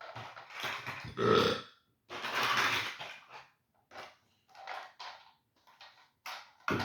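Wordless vocal noises from a person, burp-like, in the first second and a half, then a breathy hiss lasting about a second, followed by several short, softer sounds.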